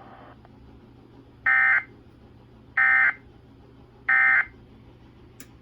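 Emergency Alert System end-of-message (EOM, "NNNN") data signal: three short identical bursts of shrill digital data tone, each about a third of a second long and a little over a second apart. The burst sequence marks the end of the relayed weather warning.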